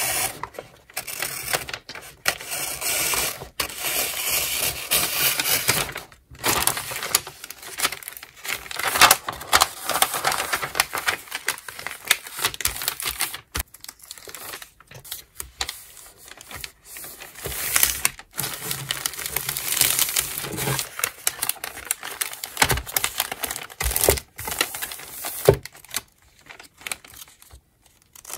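Wrapping paper being handled, folded and creased by hand, an irregular rustling and crinkling broken by sharp little taps and clicks and a few short pauses.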